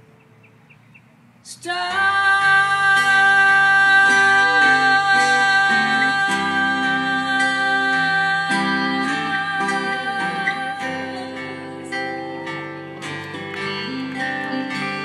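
Live guitar-led music starting suddenly about a second and a half in, after a quiet moment, with held chords and changing bass notes.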